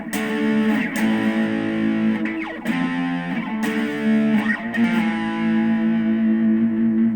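Distorted electric guitar played through an amp's crunch channel at maximum gain, strumming rhythm chords that ring out between strokes, with a long chord held through the second half.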